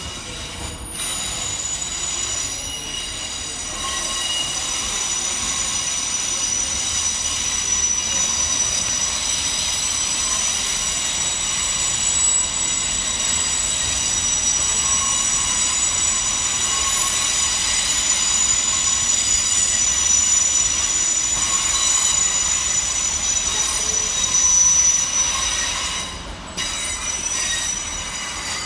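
Two coupled Class 156 diesel multiple units arriving at a station, their wheels giving a sustained high-pitched squeal of several steady tones over a low rumble. The squeal builds, then cuts away sharply near the end.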